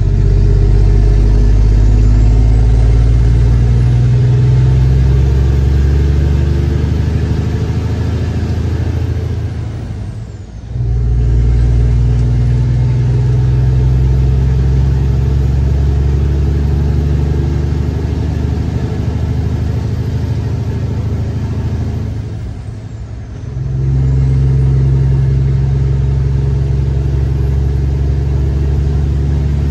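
Semi truck's diesel engine pulling away under load with a faint high whistle; twice the engine falls away for about a second, the whistle dropping with it, and then pulls again, as at a gear shift.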